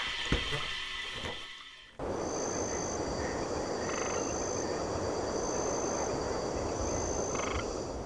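A dense, steady chorus of calling animals starts suddenly about two seconds in. A thin high note repeats about once a second above it.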